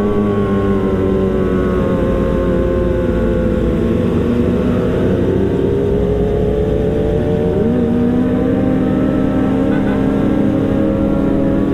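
Sport motorcycle engine running at low road speed, heard from the rider's seat, with a steady engine note. About eight seconds in the note rises a little and then holds at the higher pitch.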